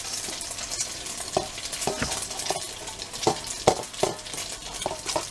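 Hot oil sizzling steadily in a stainless steel pan as an egg-dipped matzah roll fries. A spoon knocks against a steel mixing bowl seven or so times, some knocks briefly ringing.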